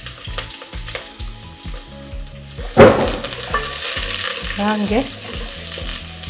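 Sliced red onions sizzling in hot oil in an aluminium pot, stirred with a wooden spoon, with a louder knock about three seconds in.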